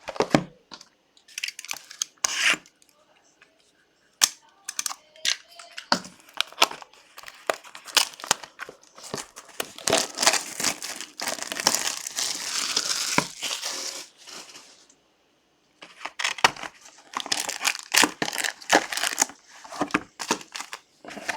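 Plastic wrapping crinkling and tearing as a sealed box of trading cards and its packs are unwrapped, in irregular bursts with a long dense stretch of crackling about halfway through and a brief pause after it.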